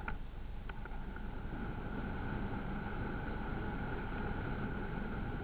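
An off-road vehicle running steadily, with a few sharp clicks in the first second and a steady tone that grows stronger about two seconds in.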